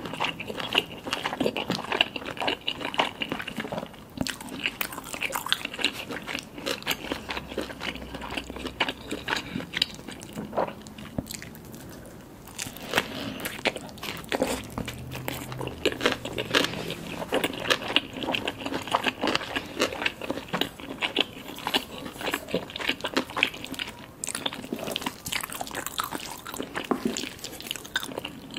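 Close-miked eating sounds: a person chewing and biting food, with wet mouth smacks and crunchy bites coming as many quick, irregular clicks.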